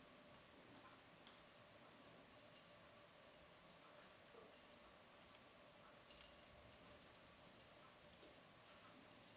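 Faint rustling and rattling in short irregular bursts as a British Shorthair kitten bats at a ribbon wand toy and scrabbles on a plush bed.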